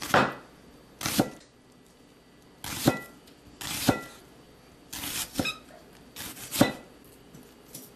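Kitchen knife slicing a red onion thinly on a cutting board: about eight separate cuts at an uneven pace, each a short sharp knock of the blade meeting the board.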